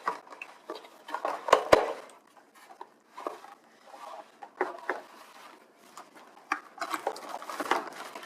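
Cardboard and plastic packaging being handled: rustling and scattered taps, with a couple of sharper knocks about one and a half seconds in.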